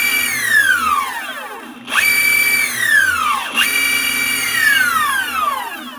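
Boosted Stealth electric skateboard's drive motors whining as the wheels are spun up in hyper mode. The high whine is winding down at the start, then twice more it jumps up quickly, holds its pitch for about a second and falls away as the wheels coast down.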